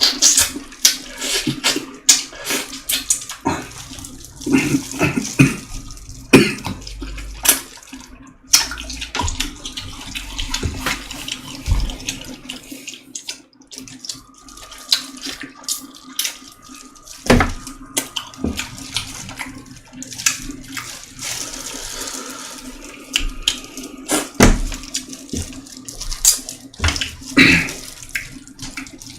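A person eating chicken soup close to the microphone: wet chewing and mouth sounds, with irregular smacks and clicks, over a steady low hum.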